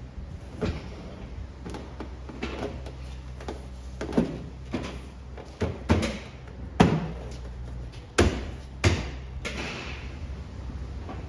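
A series of sharp knocks and thuds, about a dozen at irregular intervals and loudest in the second half, over a steady low hum.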